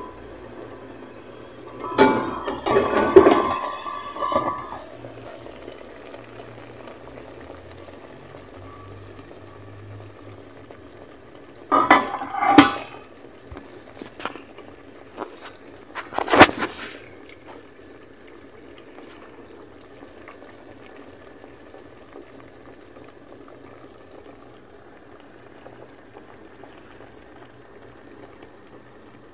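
Water boiling with a steady bubbling, broken by a few loud clattering knocks: a cluster about two seconds in with a metallic ring, another about twelve seconds in, and a single sharp hit at about sixteen seconds.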